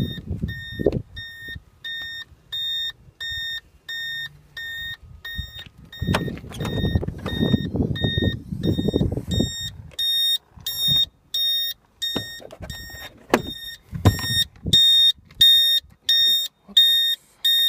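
Vehicle reversing warning beeper sounding evenly, about two beeps a second, growing louder in the second half. A low rumble runs under it for a few seconds in the middle.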